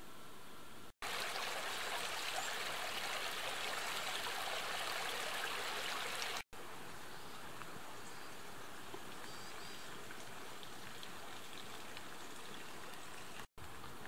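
Steady hiss of a mountain stream flowing, louder for about five seconds after a break a second in. The sound drops out briefly three times where the shots change.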